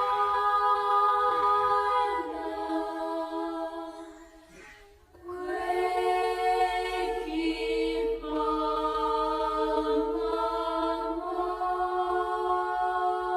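Slow background music of long held, choir-like chords that change every few seconds. It fades almost away about four seconds in and comes back a second later.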